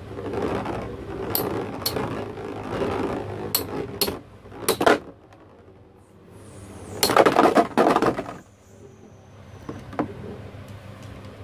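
Battle spinning tops whirring against each other in an arena, with sharp metallic clinks as they collide. The clashes come singly at first, then a loud flurry about seven seconds in before the spinning goes quieter.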